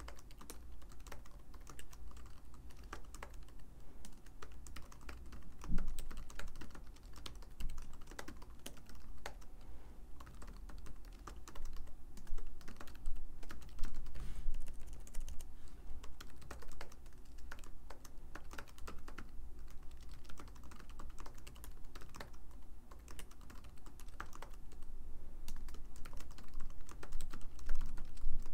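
Typing on a computer keyboard: a continuous, irregular stream of key clicks, with one louder keystroke about six seconds in.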